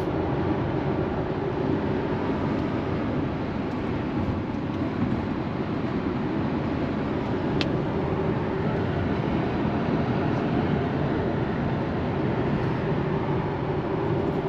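Steady road and wind noise inside the cabin of a Tesla Model X cruising at motorway speed: tyre noise and wind rush with no engine note, since the car is electric.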